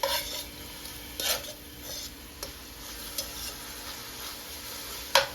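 Food sizzling in a hot frying pan, with a utensil knocking and scraping against the pan several times; the sharpest knock comes near the end.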